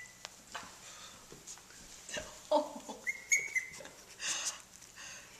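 Teddy bear puppies playing: several short, high yips and squeaks from about two seconds in, with light scuffling.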